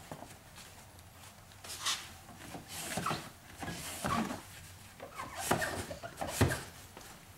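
Tint-installation hand tools working a car door window's glass and tint film: a handful of short scraping, squeaky strokes, the loudest near the end.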